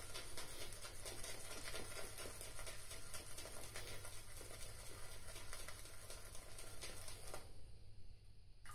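Omega shaving brush swirled in Stirling Deep Blue Sea shaving soap, working up lather: a quiet, fast, soft wet patter. It drops off about seven seconds in.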